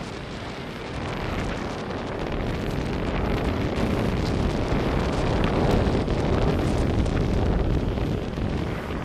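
Wind buffeting the microphone, a rough, bass-heavy rush that grows louder from about three seconds in, peaks in the middle, and eases near the end.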